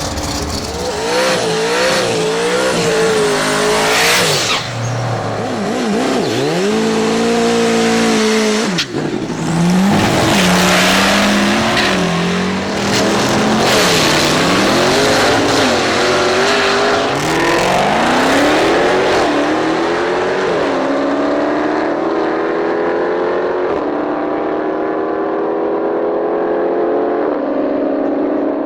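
Drag race car engine revving hard up and down, with tyre squeal, as in a burnout and staging. About 20 seconds in it settles into one long pull, pitch climbing steadily while the sound grows duller as the car moves away down the strip.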